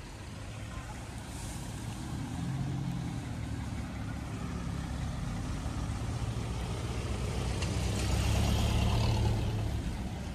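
Land Rover 4x4 engine running under load on an off-road track, a low drone that grows louder toward the end, loudest about eight seconds in.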